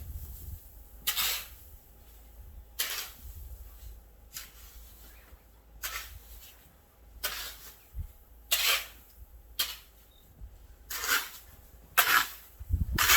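Snow crunching in a series of short strokes, roughly one every second and a half, over a low steady rumble.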